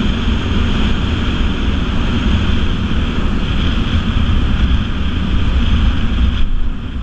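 Wind rushing over the microphone of a moving motorcycle, with its engine and road noise running steadily underneath.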